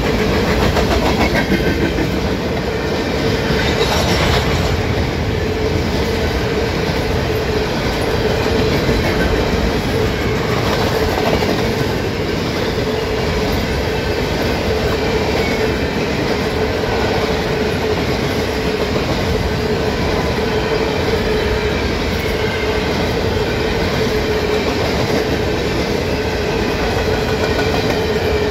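Grain hopper cars of a freight train rolling past close by: a steady rumble of steel wheels on rail, with a constant tone running underneath.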